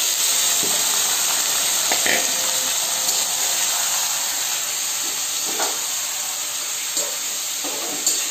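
Raw chicken pieces going into hot oil and fried onion in a steel kadhai, sizzling loudly and steadily, with a few clicks and scrapes of the stirring spoon against the pan.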